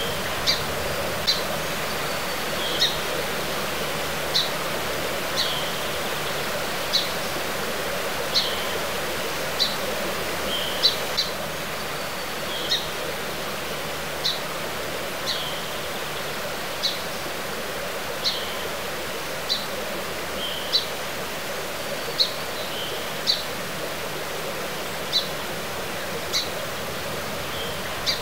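Steady rush of a flowing stream, with a bird repeating a short, high chirp every second or so.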